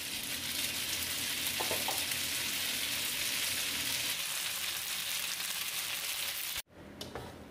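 Spaghetti tossed with oily flaked tuyo sizzling in a hot wok, a steady hiss that cuts off abruptly near the end.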